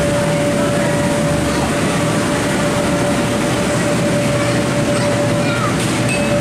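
Steady, loud running noise of an inflatable bounce house's electric air blower, with a constant hum through it.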